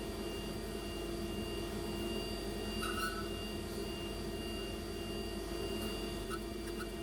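Hurco BX40i CNC machining centre milling aluminium: a steady, even cutting and spindle tone with several constant pitches, and a few short ticks about three seconds in and near the end.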